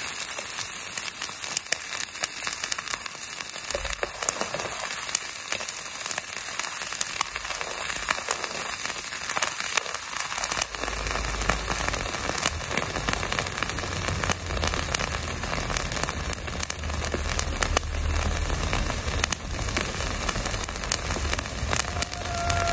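Raw chicken wing skin and fat sizzling and crackling where a red-hot iron ball sits on it, a dense, even crackle like rain. A low hum joins about halfway through.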